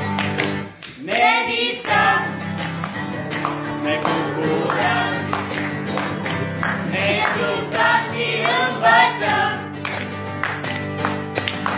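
Guitar strummed in a steady rhythm while a group of children sing along, an improvised folk song.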